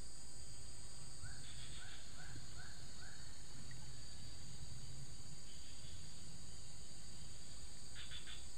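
Steady outdoor ambience of insects buzzing in a continuous high drone over a low rumble. About a second in, an animal, most likely a bird, gives five short rising notes in quick succession, and a brief rapid stuttering call comes near the end.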